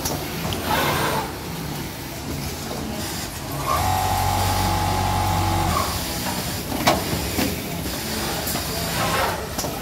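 Automatic pocket setter sewing machine running through its cycle: steady machine noise with short hisses, a steady motor hum for about two seconds in the middle, and two sharp clicks shortly after.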